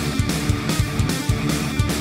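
Background rock music driven by guitar, with a steady drum beat.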